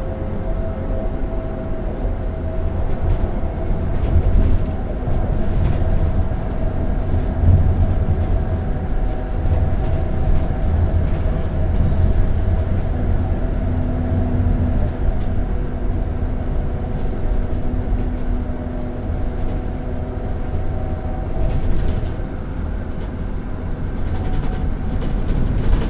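Inside a moving bus: a steady low rumble of engine and road noise with a constant droning hum, and scattered light rattles and clicks from the cabin.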